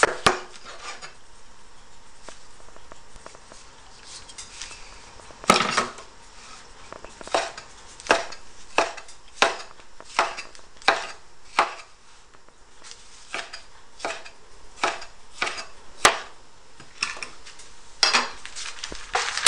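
Chinese cleaver chopping a tomato on a wooden cutting board: sharp knocks of the blade striking the board, a few at first, then a steady run of one to two chops a second, and a quick cluster of knocks near the end.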